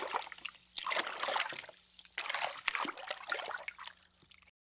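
Water pouring and splashing into water in uneven gushes, fading away and then cutting off abruptly near the end.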